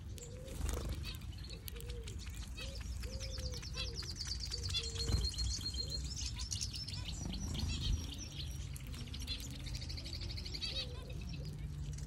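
A flock of small aviary finches, zebra finches among them, chirping and calling as they feed at a seed pile, with a long run of rapid, high twittering notes from about a second in until near the end. Short clicks run through it.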